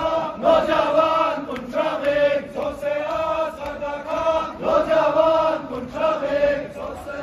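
A large crowd of men chanting a Muharram mourning chant in unison, in a steady rhythm of about one phrase a second.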